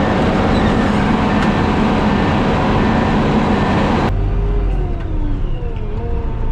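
Concrete mixer truck: loud, even engine and road noise, then, after an abrupt cut about four seconds in, the engine's pitch falls and rises again as it changes speed.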